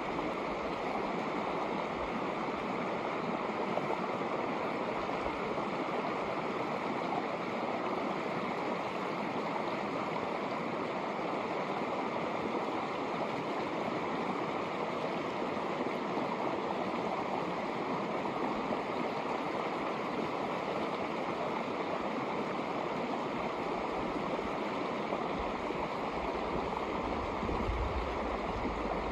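Shallow snowmelt mountain creek flowing over rocks: a steady, even rush of running water.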